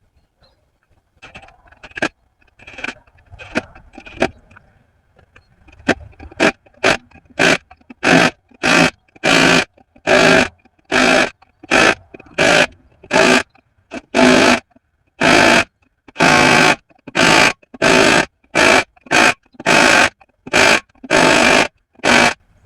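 Rhythmic scraping strokes at a stuck wheel hub: a few scattered ones at first, then steady and loud from about six seconds in, about one and a half strokes a second.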